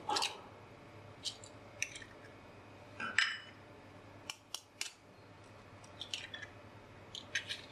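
Eggs being cracked against a bowl and the shells pulled apart: a scattered series of sharp taps and clicks, with a louder crack about three seconds in.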